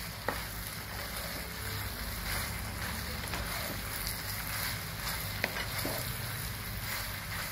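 Wooden spatula stirring fried cauliflower florets through thick sauce in a sizzling frying pan, with a couple of light knocks of the spatula against the pan.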